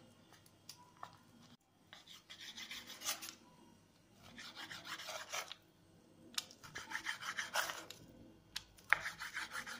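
Kitchen knife slicing raw chicken breast on a wooden cutting board, in four short bouts of quick back-and-forth strokes.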